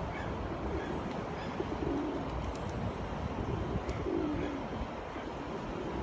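Pigeons cooing: a few low coos about a second in, near two seconds and around four seconds, over a steady low rushing background.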